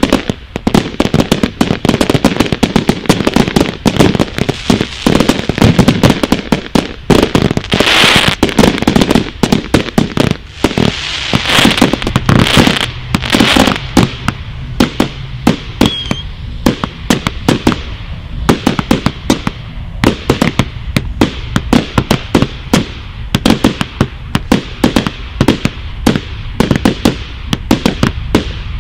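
Consumer firework cakes firing a rapid, unbroken barrage of sharp bangs, several a second.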